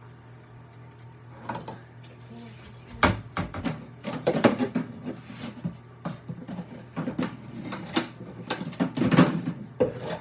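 Rummaging in a kitchen cupboard for a storage container: a string of knocks and clattering containers, with the cupboard being opened and shut, loudest about three seconds in and again near the end.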